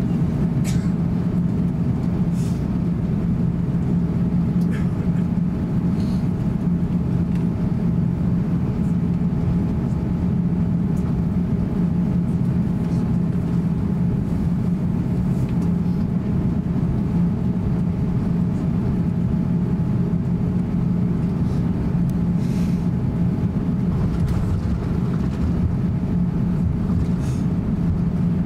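Steady cabin noise inside an Airbus A350-900 taxiing, its Rolls-Royce Trent XWB engines at taxi power giving a constant low drone with a faint steady whine above it. A few faint light ticks are heard over the drone.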